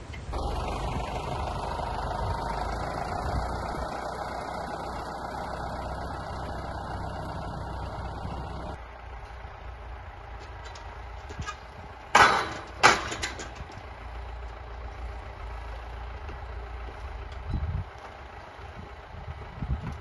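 Farm tractor engine running steadily as it works a log-loader crane, louder for the first nine seconds or so and then lower. Two sharp knocks come about twelve seconds in.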